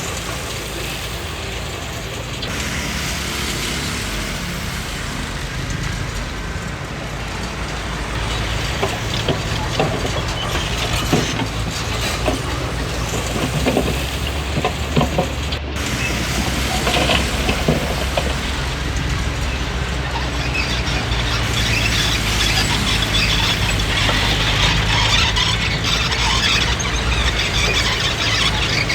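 Komatsu D20P crawler bulldozer at work: its diesel engine runs steadily under a constant clatter of clanking steel tracks. The sound drops out for a moment about halfway through.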